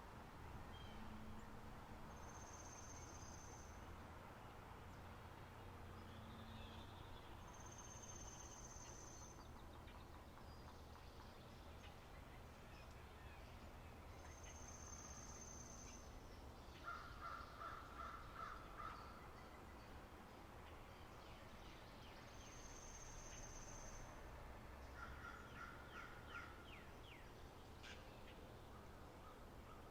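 Faint spring-meadow nature ambience of birds and insects. A high, thin note lasting about a second repeats every six seconds or so, and a bird gives a rapid run of chattering calls about halfway through and again near the end.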